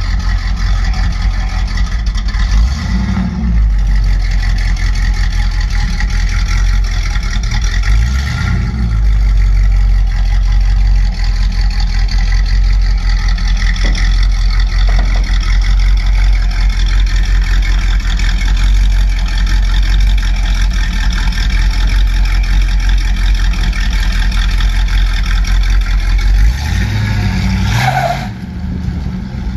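A 1978 Dodge truck's 440 big-block V8, running on a freshly rebuilt Thermoquad four-barrel carburetor, is revved briefly a couple of times, then revs as the truck pulls away near the end, and the sound drops off.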